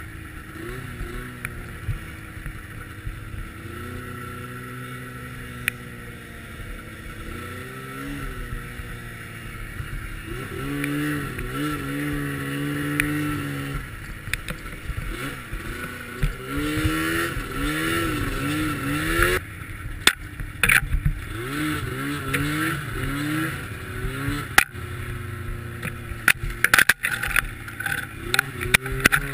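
Snowmobile engine running under the rider, its note rising and falling as the throttle is opened and eased off. Sharp knocks and scrapes come in the last seconds as the sled pushes through branches.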